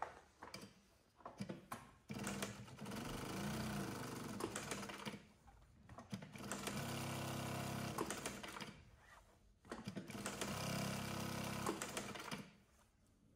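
GLOCK GL-303 industrial walking-foot leather sewing machine with a large hook and servo motor, stitching in three runs of about two to three seconds each, stopping briefly between runs. A few short clicks come before the first run.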